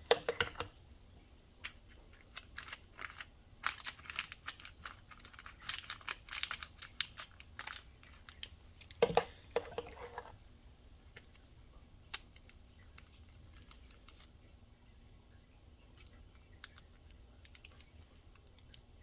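Spoon scraping and clicking against a ceramic mixing bowl and a metal springform pan as a thick, paste-like tofu cheese mixture is scooped and spread, with a louder knock about nine seconds in. After about ten seconds only faint occasional clicks remain.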